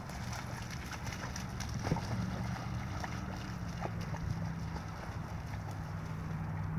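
A dog splashing and wading through a shallow, muddy puddle, with scattered sharp splashes. A steady low hum runs underneath.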